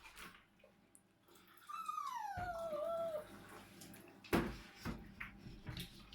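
Maine Coon cat giving one long meow of about a second and a half that slides down in pitch, about two seconds in. A sharp knock follows a couple of seconds later, then a few faint taps.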